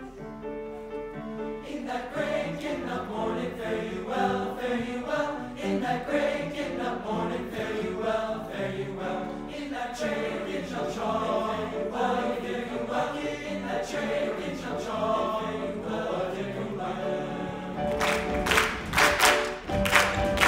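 A men's choir singing in many parts, voices moving together through a song. About two seconds from the end, a held final chord gives way to audience applause and cheering.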